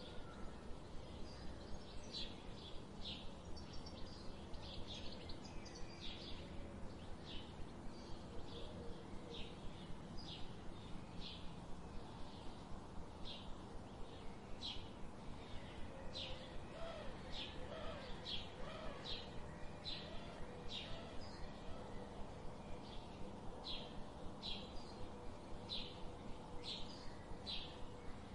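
Small birds chirping: short, high chirps repeated about once or twice a second, over a steady low background noise.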